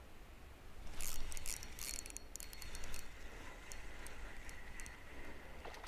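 Spinning reel being worked: a dense run of rapid clicking and whirring about a second in, then lighter ticks at fairly even spacing.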